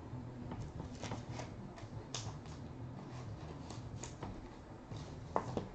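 Hands handling a trading card, with faint scattered rustles and light clicks of card stock. A brief voice-like hum stands out near the end.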